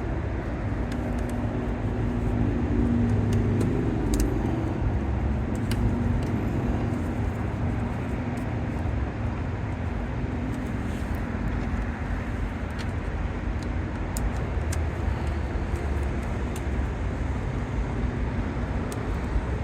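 Steady vehicle rumble with a faint pitched hum in the first few seconds, and a few faint light clicks scattered through it.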